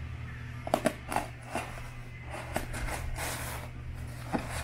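A utility knife scraping and cutting at the plastic film wrapped around a polystyrene foam shipping box, with several sharp clicks and taps from handling and a rasp of film about three seconds in. A steady low hum runs underneath.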